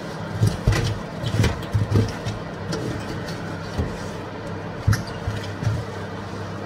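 A cloth wiping and rubbing the inside of an oven, with irregular knocks and scrapes of the hand against the oven walls, busiest in the first two seconds and with one sharp knock about five seconds in. A steady low hum runs throughout.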